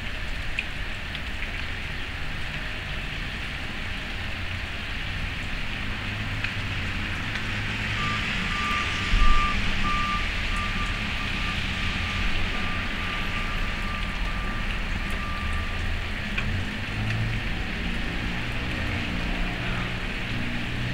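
Steady freezing rain hissing down on ice-coated trees over a low engine rumble. In the middle stretch a vehicle's reversing alarm beeps at one steady pitch for several seconds, and there is a brief low thump about nine seconds in.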